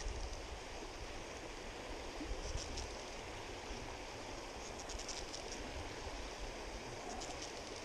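Shallow river water flowing and rippling steadily over a rocky riffle, with a few faint high crackles.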